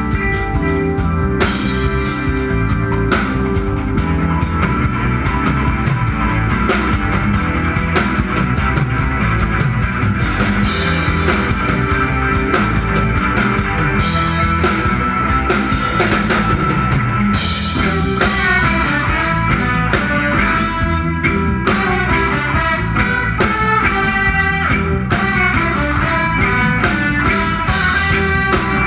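A live band plays an instrumental passage, with guitars over bass and a drum kit. About two-thirds of the way in, a busier lead line of quick high notes comes in.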